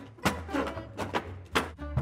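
Upbeat instrumental background music with a walking bass line and sharp percussive hits.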